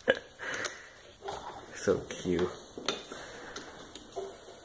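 Large plastic interlocking building blocks clacking against each other and on a wooden floor as a toddler stacks them: a few sharp, separate clacks, with a short burst of voice about two seconds in.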